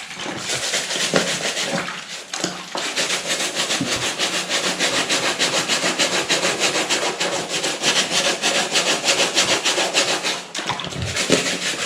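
A brush scrubbing a soapy knit sneaker upper: rapid, even back-and-forth strokes. A few uneven strokes open it, then steady scrubbing runs until a short pause near the end.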